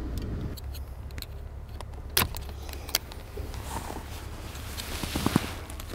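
Screwdriver working at a car's steering-column ignition lock tumbler: a few sharp metallic clicks and light scraping over a low steady hum.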